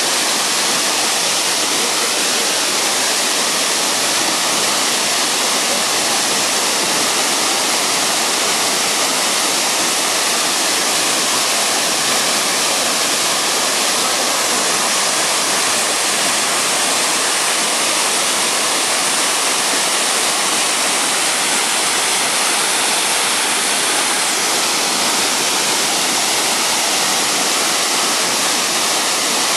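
Waterfall pouring over rock into a pool: a loud, steady rush of falling water.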